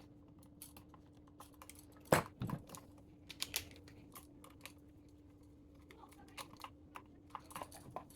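Light, scattered clicks and taps of small plastic and metal parts being handled while fitting an electrical outlet, with a sharper knock about two seconds in and a run of small clicks near the end, over a faint steady hum.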